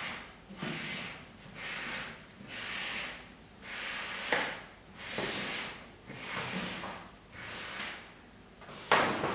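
Pleated woven fabric set with small metal plates being pushed and gathered by hand: rustling and scraping in swells about once a second as the folds slide together. The plates knock with a sharp clack a little past the middle and a louder one near the end.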